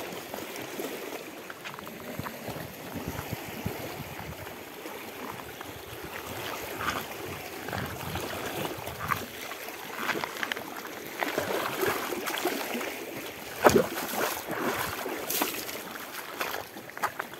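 Small waves lapping and splashing against shoreline rocks, an uneven patter of little splashes, with one sharp, louder tap about fourteen seconds in.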